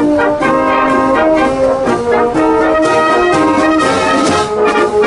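Military wind band of brass and woodwinds playing a tune, with the brass to the fore in held and moving notes.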